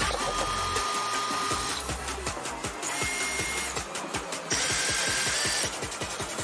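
Cordless drill-driver with a Phillips bit driving screws into a plywood frame: three short runs of a steady motor whine, each at a slightly different pitch, the middle one the shortest.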